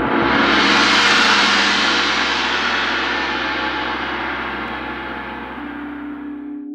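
Gong swelling to its loudest about a second in, then slowly fading, and cut off near the end. Just before the cut, a singing bowl's steady ringing tone comes in.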